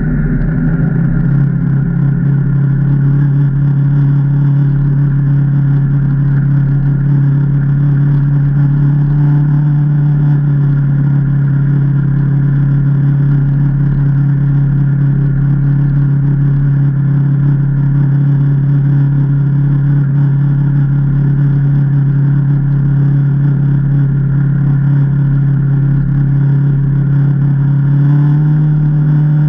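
2019 Can-Am Maverick Trail 800 side-by-side's V-twin engine running at a steady speed, its pitch stepping up slightly near the end.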